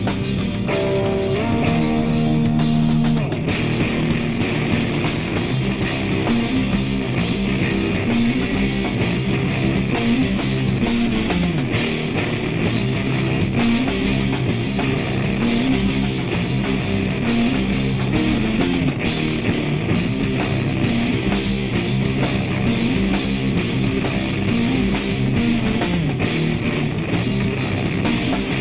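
A live stoner/doom/sludge band playing loud, with distorted electric guitar and a drum kit. Held low notes ring for the first few seconds, then the band goes into a repeating heavy riff.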